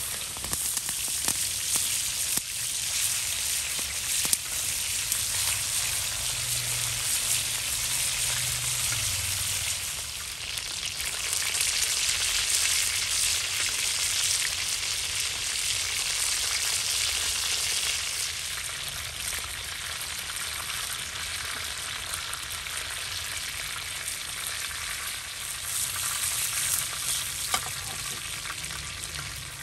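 Chicken pieces sizzling and frying in hot oil in a wide, shallow metal pan over a wood fire, a steady loud hiss. There are occasional scrapes and taps as a knife and a wooden spatula turn the pieces.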